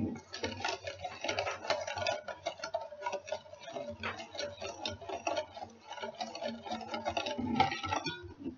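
A spoon stirring barbecue sauce in a bowl, clinking and scraping against the sides in a quick, steady run of small clicks as the sugar is worked in to dissolve.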